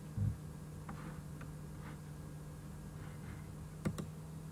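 Computer mouse clicks: a few faint ticks, then a sharp double click about four seconds in, over a steady low electrical hum. A dull bump sounds right at the start.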